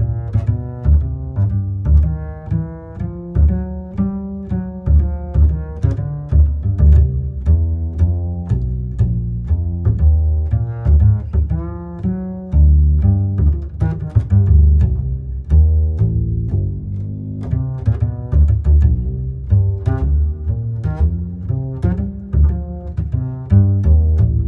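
Instrumental music with a heavy, pulsing bass line and plucked and bowed string-like notes, played loud through a Sony Genezi MHC-GT44 mini hi-fi system.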